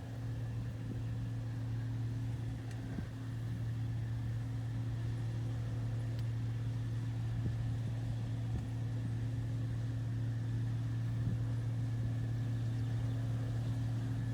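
Combine harvester running steadily at work: a constant low machine drone with a faint steady higher whine.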